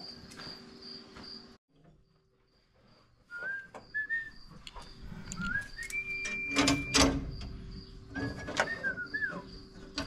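A man whistling a short, bouncy tune in a few brief notes, with two loud knocks about seven seconds in.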